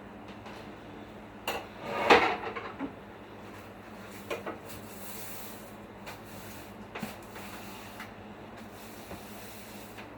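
A few knocks and a brief clatter of hard objects being handled, the loudest about two seconds in, over a steady low hum.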